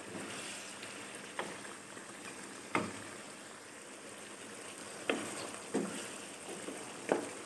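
Faint bubbling and sizzling of a mutton and tomato curry cooking in a nonstick wok. A wooden spatula stirring it knocks against the pan about five times, most sharply a little under three seconds in.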